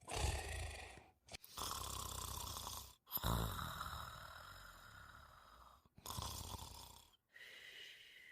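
A person snoring: several drawn-out snoring breaths in and out, each separated by a short silent gap.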